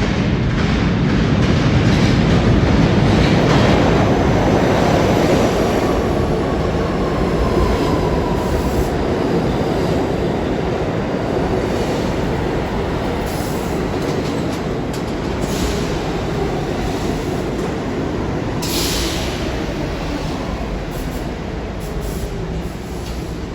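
R68 subway train entering a station: loud wheel-and-rail rumble that peaks in the first few seconds and slowly fades as the train slows. A faint falling whine runs through the middle, and short high hissing bursts come several times, the strongest about nineteen seconds in.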